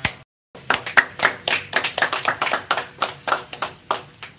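A small group clapping hands, irregular claps several a second, starting about half a second in after a brief cut in the sound.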